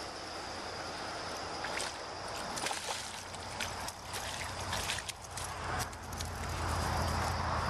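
A hooked largemouth bass splashing at the surface by the bank as it fights the line, with repeated sharp splashes between about two and five seconds in. Crickets chirp steadily behind it, and a low rumble rises near the end.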